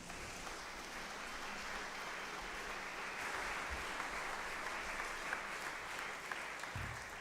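Audience applauding at the end of a song.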